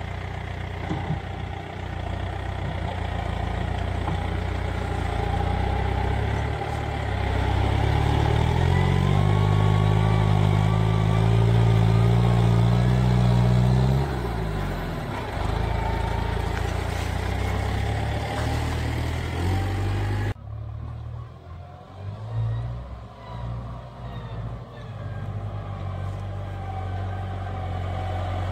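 New Holland farm tractor's diesel engine running, revving up and working harder about 8 seconds in as the front loader digs into the silage, then easing off after about 14 seconds. About 20 seconds in the sound cuts abruptly to a quieter, uneven engine running.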